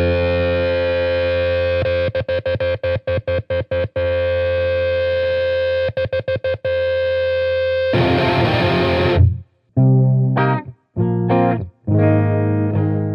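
Electric guitar with a Seymour Duncan Invader bridge humbucker, played through a distorted EL34 valve amp. A sustained chord is twice cut into rapid stutters, a harsh noisy burst comes about eight seconds in, and short choppy chords follow.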